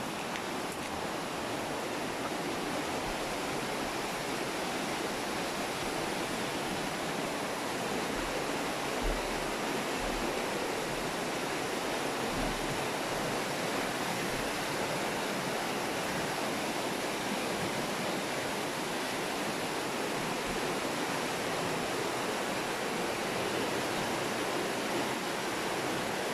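Steady rushing of a swollen, fast-flowing glacial mountain river full of white water.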